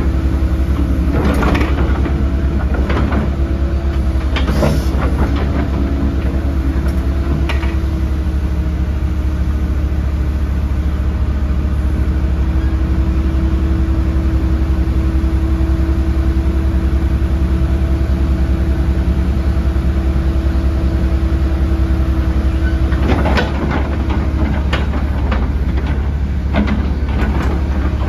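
Hyundai HX140LC 14-tonne crawler excavator working its boom, arm and bucket, its diesel engine running with a steady low drone. A steady whining tone holds through the middle. Sharp metallic clanks and knocks come in the first few seconds and again near the end.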